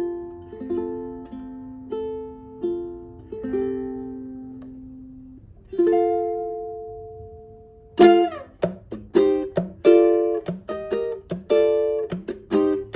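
Solid koa tenor ukulele played unaccompanied. A slow melody of single plucked notes is left to ring, and one note sustains and fades about six seconds in. From about eight seconds in comes quick, rhythmic chord strumming.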